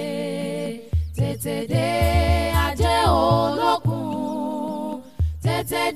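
Background music: a singing voice over a steady low beat.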